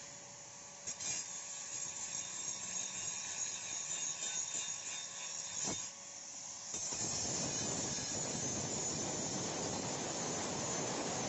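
Handheld angle grinder sharpening the edge of a steel spade blade. At first it grinds lightly over a steady motor whine, with one sharp click. From about seven seconds in, the disc is pressed onto the steel and gives a louder, steady grinding sound.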